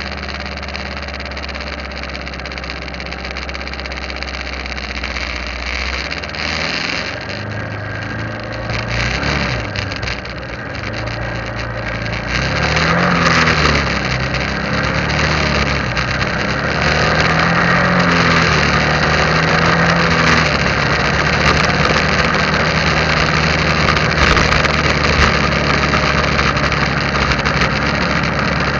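Motorcycle engine idling steadily, then pulling away about six seconds in. Its note rises and falls as it picks up speed, and from about twelve seconds in it gets louder, with a steady rush of wind and road noise while riding.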